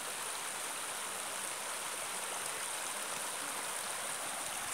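Steady rush of flowing water, an even hiss with no change throughout.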